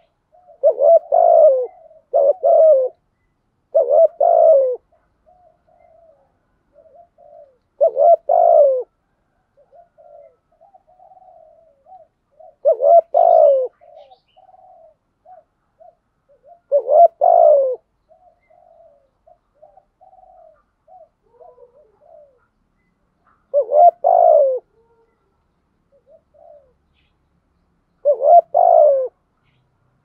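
Spotted dove cooing: the 'thúc gù' coo of a decoy dove, the call used to get wild doves to answer. Loud coos come three in quick succession over the first five seconds, then one every four to six seconds, with fainter short notes between.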